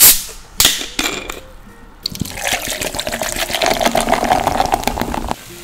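A plastic bottle of yellow soft drink is twisted open with a sharp hiss and a couple of short cap clicks. About two seconds in, the drink is poured into a metallic tumbler, pouring and splashing steadily for about three seconds until it stops suddenly.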